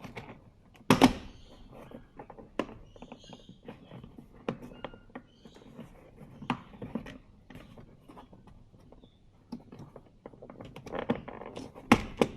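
Irregular clicks, taps and knocks of hand work on a Toyota Hilux door's interior trim: Phillips screws being taken out and plastic trim pieces handled. A louder thunk comes about a second in and another near the end.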